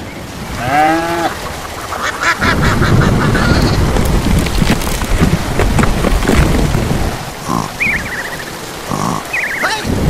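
Ducks and geese honking and quacking in short calls, over a heavy downpour of rain that comes in about two seconds in and is the loudest sound.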